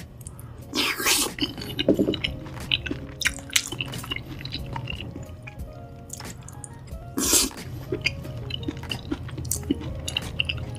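Close-miked wet chewing and lip-smacking of a spoonful of spicy minced-meat sauce, with many small wet clicks and two louder wet smacks, about a second in and about seven seconds in. Background music plays underneath.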